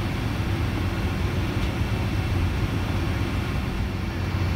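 Boeing 747-400's Rolls-Royce engines running steadily as the aircraft taxis, heard from inside the passenger cabin as a steady low rumble with no rise in pitch.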